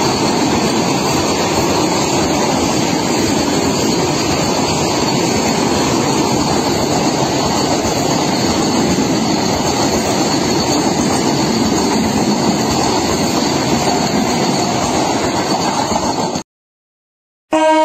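Vande Bharat electric multiple-unit train passing close by: a steady, loud rush of wheels on rail with a thin high whine over it. The sound cuts out about a second and a half before the end, and a horn tone starts just at the end.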